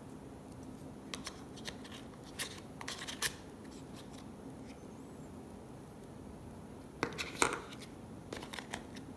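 Scattered light clicks and rustles of box contents and packaging being handled, in two small clusters, about two to three seconds in and again near seven seconds.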